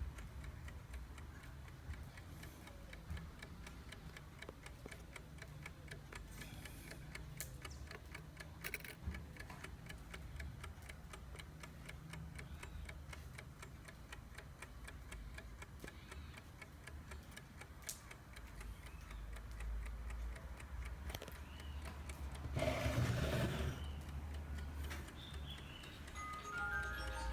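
Junghans cuckoo alarm clock ticking steadily. About 23 seconds in there is a brief louder rustling noise, and just before the end a run of short high pitched notes begins.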